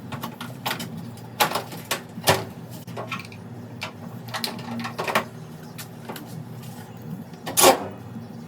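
Scattered sharp clicks and knocks of parts and tools being handled, the loudest near the end, over a steady low hum.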